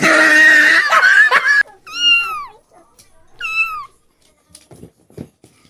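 A cat giving a loud, harsh cry for about a second and a half, then two short meows that fall in pitch. A few faint clicks follow near the end.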